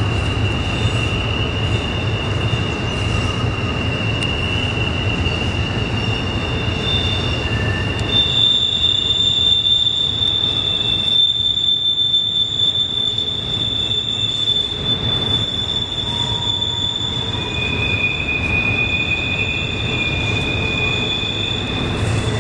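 Double-stack intermodal freight train's well cars rolling past, with a low rumble and loud, steady, high-pitched wheel squeal from the flanges grinding on the curve. The squeal jumps to a higher pitch about eight seconds in, and a second tone joins near the end.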